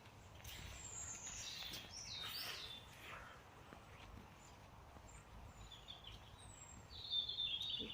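Small birds calling: thin, high calls that fall in pitch in the first few seconds, then a quick burst of twittering near the end.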